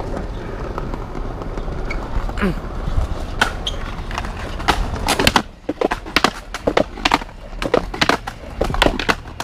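Skateboard wheels rolling over pavement: a steady rumble, then from about five seconds in a run of sharp, irregular clacks, several a second, as the boards cross the joints of the paving stones.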